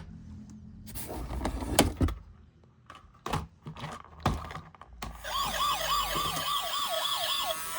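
Scattered clicks and knocks, then from about five seconds in a toy vehicle's electronic siren starts, a fast warbling wail rising and falling about four times a second.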